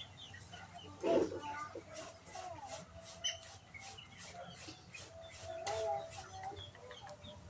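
Birds chirping in the background, a steady run of short chirps about three a second. There is one brief, louder low sound about a second in.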